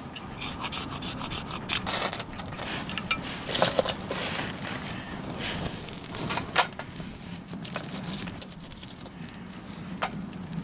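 Ferro rod scraped with a striker over a dry grass tinder bundle, a series of sharp scrapes as sparks are thrown. The tinder then catches and crackles as it burns.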